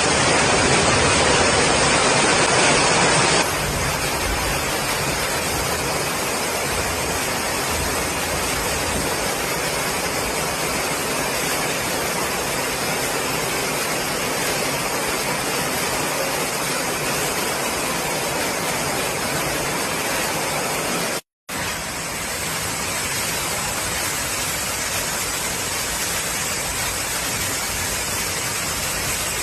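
Steady rushing noise of storm water, heavy rain and flowing floodwater. It is louder and brighter at first, changes abruptly about three and a half seconds in, and cuts out for a split second about 21 seconds in.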